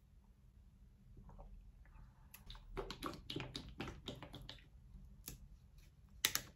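An Alpro plant-milk carton being picked up and handled: a quick run of taps and rustles, then a single sharp click near the end as its plastic screw cap is twisted open.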